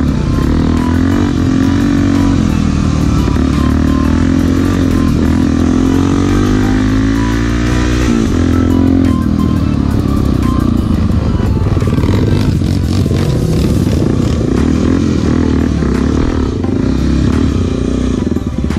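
Single-cylinder trail motorcycle engine under way, its revs climbing slowly for several seconds, dropping suddenly about eight seconds in, then rising and falling again. The rider says the carburetor slide is sticking and the bike has little power.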